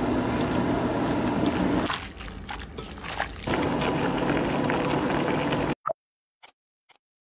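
Water bubbling at a boil in a stainless steel pot with napa cabbage leaves blanching in it. After a quieter stretch with a few clicks, cabbage doenjang soup bubbles at a boil. Near the end the sound cuts off to near silence, broken by a couple of short clicks.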